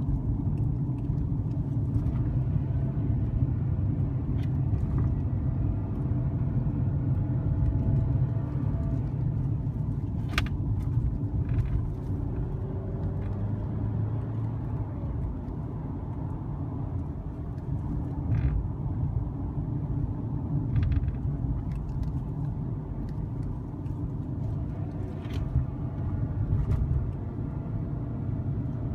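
2015 Mercedes-Benz C300 4MATIC being driven, heard from inside the cabin: a steady low rumble of road noise and its 2.0-litre turbocharged four-cylinder engine. A few short clicks are scattered through it.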